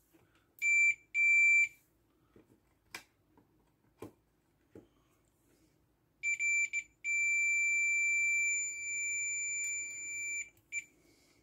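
Fluke 12 multimeter's continuity beeper: two short beeps, then a few broken beeps and one long steady beep of about three and a half seconds as the probe holds contact, with a last short blip near the end. The beeping confirms continuity through the ground wire, end to end. Light taps of the probe are heard between the beeps.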